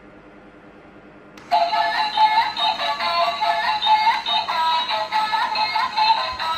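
Doraemon stair-climbing ball track toy switched on: after a moment of quiet, an electronic melody from its built-in speaker starts suddenly about one and a half seconds in and plays on steadily.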